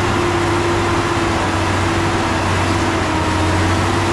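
Heavy diesel engine of a truck or earthmoving machine running steadily, a constant low hum with no revving.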